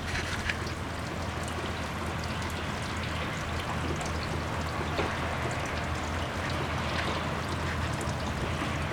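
Rainwater trickling and pouring down through an ice-coated rain chain, a steady running-water sound with scattered drips.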